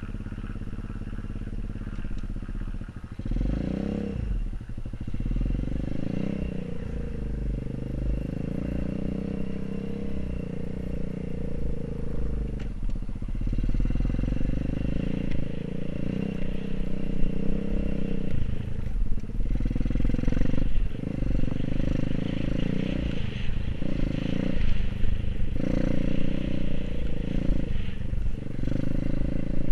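Dirt bike engine pulling away and riding. The engine gets louder about three seconds in, then its note drops briefly several times later on as the throttle is eased off.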